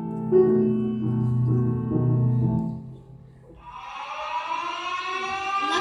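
Instrumental music: low sustained notes for about three seconds, a brief lull, then a slowly rising high tone with many overtones leading toward the song.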